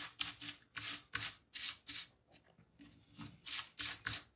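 Brush bristles sweeping in quick strokes across a Dell Latitude 5520's exposed motherboard and chassis, brushing out cat hair: a dozen or so short, scratchy swishes, about three a second.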